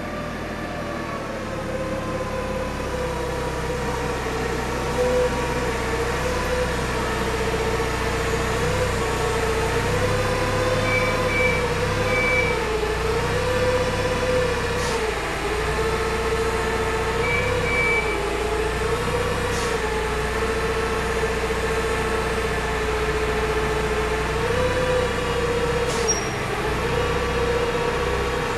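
Forklift running and being manoeuvred, a steady whine that rises and falls in pitch as it moves, over a low rumble. A few short high beeps come in two groups near the middle.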